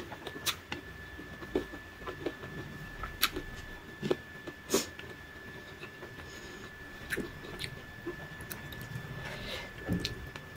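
Mouth sounds of a person eating rice by hand: scattered soft chewing smacks and clicks, over a faint steady high whine.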